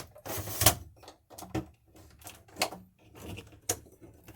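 Interior door of a travel trailer being opened: a few separate sharp clicks and knocks from the latch and door, the loudest near the start.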